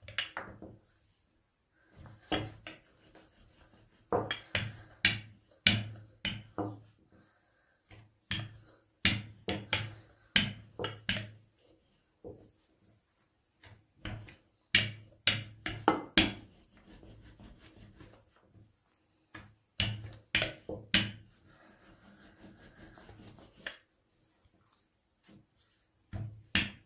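Wooden rolling pin rolling out a thin round of dough on a floured silicone mat: quick runs of knocks and rubbing strokes as the pin goes back and forth, with short pauses between the runs.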